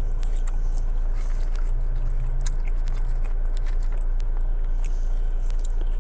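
A person chewing and biting a fried chicken sandwich and fries, with scattered small mouth clicks, over a steady low hum.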